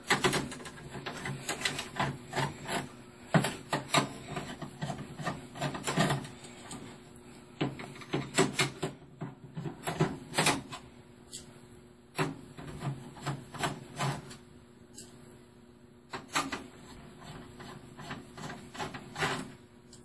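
Irregular clicks, taps and knocks of hands working inside a desktop PC's sheet-metal case: a screwdriver backing out the motherboard screws, with loose screws and a plastic power connector rattling against the chassis.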